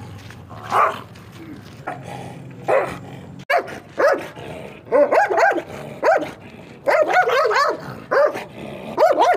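A large guard dog barking: two single barks about two seconds apart, then, after a sudden break, quicker barking in bursts of two or three barks.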